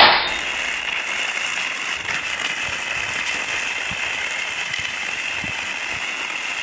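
Steady rushing hiss of wind on the microphone and skis gliding over snow, recorded at speed while skijoring behind a pair of running Samoyeds.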